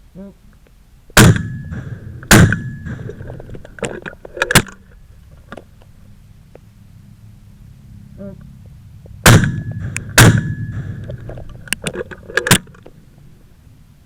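Shotgun fired twice in quick succession, about a second apart, and again as another pair several seconds later, the loud reports ringing out briefly. After each pair come a few smaller sharp metallic clacks.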